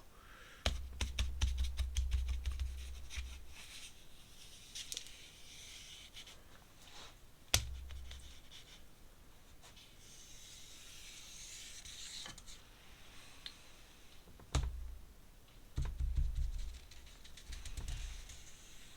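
Brush work on paper at a desk: scratchy strokes with scattered small taps and clicks. A few low bumps against the table come about a second in, near the middle, and again toward the end.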